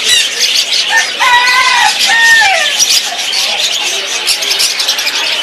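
Many caged parrots and other pet birds chirping and screeching together in a dense, high chatter. About a second in come a few louder calls that glide up and down.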